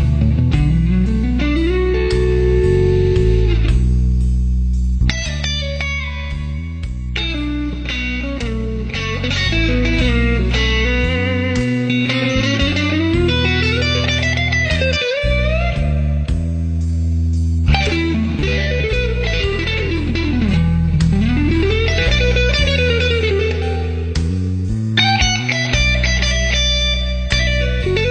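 Electric guitar music over a steady bass line, the lead notes bending and sliding up and down in pitch several times.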